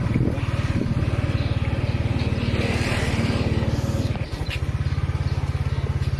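A small engine running steadily with a fast, even putter, dipping briefly about four seconds in.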